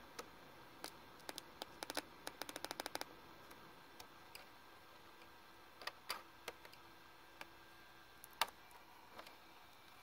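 Sharp clicks from a Compaq Presario CQ60 laptop speaker as its wires are prodded, the sign of a short in the speaker wiring. They come irregularly, with a quick run of clicks about two seconds in and a louder single click near the end.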